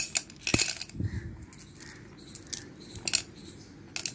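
Small pebbles being put into a glass jar, clinking against the glass and the stones already inside: a few sharp clicks near the start, more around three seconds in and again at the end.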